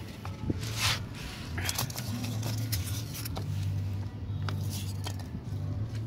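A few short rustles and scrapes of a fibrous root ball being handled and set into a plastic net pot, over a steady low hum.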